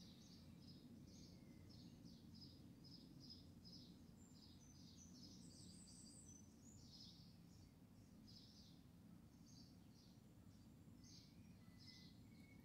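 Faint bird chirping: a run of short, high notes, about three a second, thinning out after about six seconds, over a low steady rumble.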